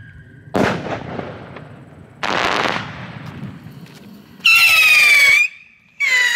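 Fireworks: a sudden pop about half a second in and a short hissing burst near two seconds. Then comes a small three-stage whistling rocket's ascent: a loud whistle falling slightly in pitch from about four and a half seconds, a brief gap, and a second, lower whistle as the next stage fires.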